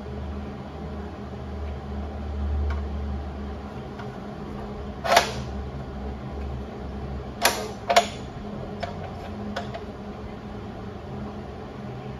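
A few sharp knocks, the loudest about five seconds in and a close pair about two and a half seconds later, from the workpiece being handled and set in an abrasive chop saw's vise, over a low hum that dies away by about six and a half seconds in.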